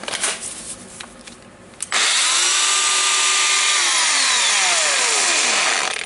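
Makita DGA504 brushless cordless angle grinder: a few light handling clicks, then about two seconds in it starts up loud, runs at speed with a steady whine, and over the last two seconds its pitch falls steadily before it cuts off. It runs with a strange noise that is traced to a worn armature ball bearing.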